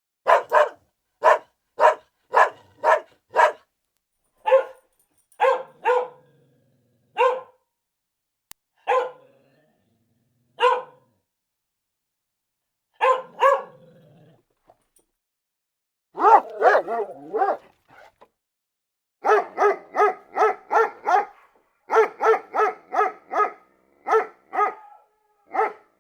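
Dog barking: a quick run of short barks, then single barks a second or two apart, then faster runs of barks near the end.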